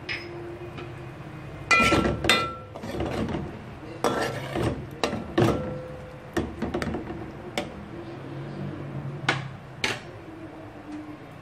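Metal spoon clinking and scraping against the inside of a metal cooking pot while chicken pieces are stirred in a little sauce: about ten irregular, ringing clinks.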